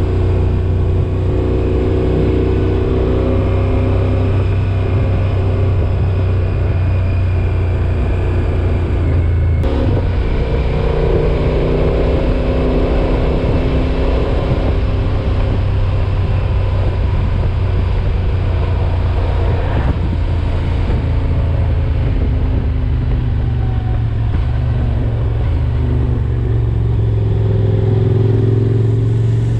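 Car driving along: steady engine and road hum whose pitch shifts slowly, with one short click about ten seconds in.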